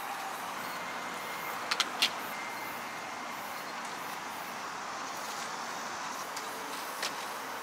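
Steady hum of road traffic, with a quick run of three sharp clicks about two seconds in and a fainter click near the end as a Brompton folding bicycle is unfolded and its parts snap into place.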